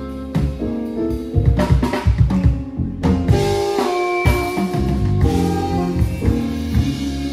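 A live band plays a slow R&B tune, with a saxophone carrying the melody over keyboard, electric guitar and drum kit. The drums are busy with a run of hits in the first few seconds.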